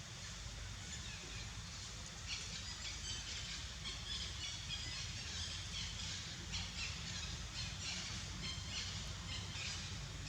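Many short, high-pitched chirps and squeaks from small animals, coming thick and fast from about two seconds in until near the end, over a steady low rumble.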